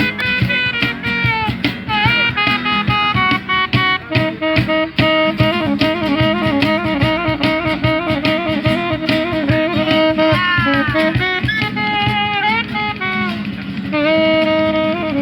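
Band playing an instrumental passage: a lead melody with pitch bends and slides over steady drums and bass.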